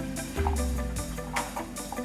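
Background music with deep bass notes and a steady beat.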